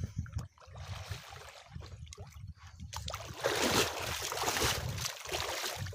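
Water sloshing and splashing as a man wades and works his hands in shallow muddy water, growing louder about three seconds in, over a steady low rumble.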